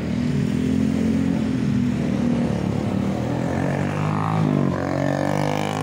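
Motorcycle engines running past on the road, a steady engine drone joined by a second engine whose pitch rises about three to four seconds in.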